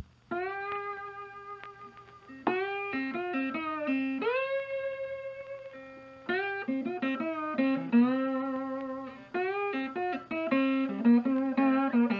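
Background music: a guitar playing slow, ringing single notes, several sliding up into pitch.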